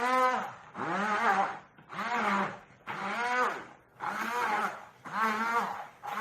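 A series of pitched, animal-like calls, about one a second, each rising then falling in pitch.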